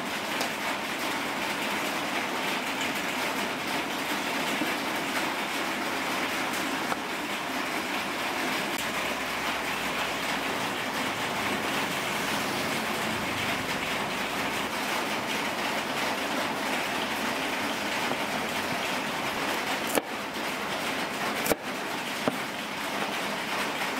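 A steady rushing hiss, with a couple of sharp knocks near the end from a cleaver striking a wooden cutting board.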